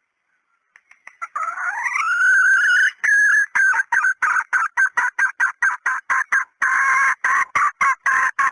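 Junglefowl hen decoy call: a drawn-out note rising in pitch, then a fast run of short clucks, about four or five a second.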